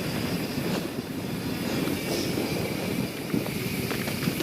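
YT Jeffsy 27 mountain bike descending at speed on a dirt trail: a steady rush of tyres rolling over the ground and bike rattle, mixed with wind noise.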